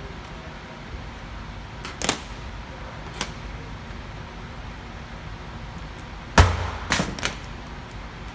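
Sharp taps and clacks of hand layout tools on sheet metal during a layout: a few single clicks, then a louder knock with a dull thump about six seconds in, followed quickly by two more clacks, over a steady low background hum.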